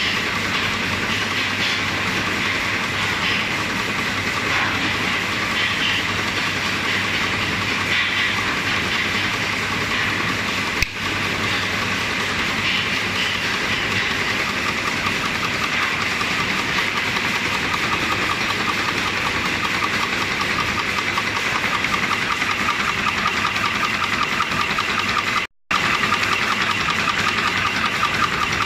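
Automatic hog ring (C ring) making machine running, feeding wire and forming rings in a rapid, steady clatter over a low hum. The sound drops out briefly near the end.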